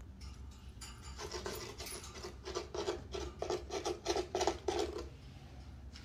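Rhythmic rasping from a cat, about four strokes a second. It starts about a second in and stops about a second before the end.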